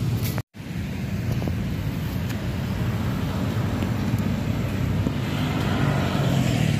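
Road traffic passing, with wind rumbling on the microphone. There is a brief dropout about half a second in, and the noise grows a little louder near the end as vehicles come closer.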